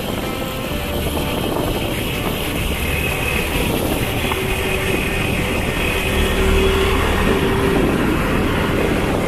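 Motorcycle engine running steadily while riding along a road, under wind rush on the microphone.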